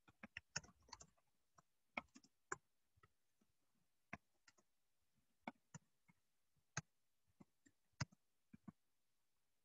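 Faint, irregular clicks and taps over near silence, a few close together about half a second in, then single ones every second or so.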